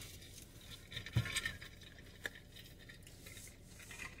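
Quiet handling sounds from a metal water bottle being picked up and raised to drink: a soft thump about a second in and a few light clicks and scrapes.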